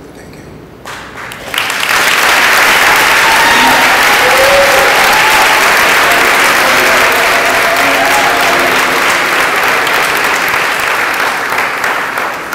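Audience applauding loudly. The clapping swells in about a second and a half in, holds, and tapers off near the end, with a few voices calling out over it.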